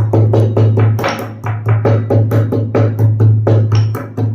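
A pestle pounding black peppercorns in a kharal mortar with quick, even strokes, about four or five a second, crushing them coarsely. Background music with a steady beat runs underneath.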